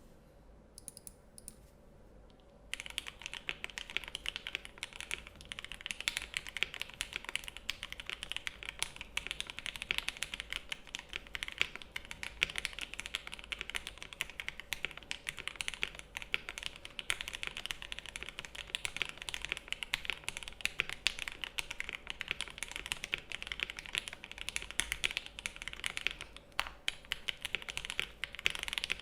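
Typing on a KBD67 Lite mechanical keyboard with lubed, filmed Gateron Ink Black linear switches on a polycarbonate plate, with GMK keycaps. A few scattered keystrokes come first; after about three seconds it turns into continuous fast typing.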